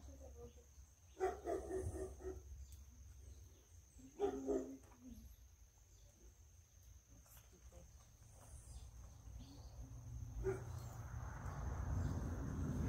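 A dog barking in two short bursts of a few barks each, in the first five seconds. Near the end a steady rushing noise swells up.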